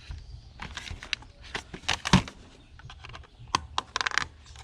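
Plastic casing and parts of a vibrating alarm clock clicking and knocking as they are handled during disassembly. There are scattered sharp clicks, the loudest about two seconds in, and a quick run of clicks near the end.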